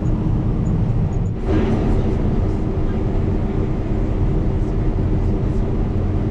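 Combine harvester running steadily while cutting soybeans: a constant low machinery drone with a steady hum through it.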